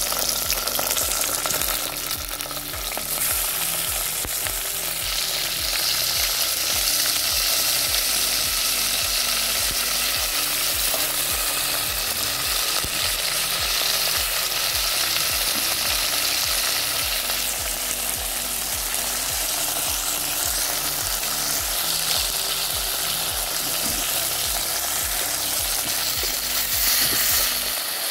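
Raw mutton pieces sizzling steadily in hot ghee in a clay pot, the meat's juices frying out into the fat, while a wooden spatula stirs and turns them.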